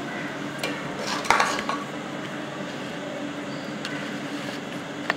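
Metal serving spoon scraping through rice and clinking against a metal pot and a china platter while biryani is dished out. A few scattered sharp clinks, the loudest about a second in.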